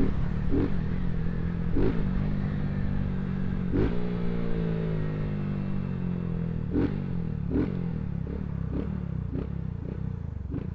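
Small motorcycle with an aftermarket exhaust running on the road, its engine note falling steadily as it slows, with sharp clicks every second or so.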